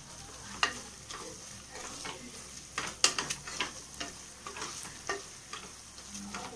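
Wooden spatula stirring onions and spices frying in oil in a pressure cooker pot. A steady sizzle runs throughout, with several sharp scrapes and knocks against the metal pot, loudest about three seconds in.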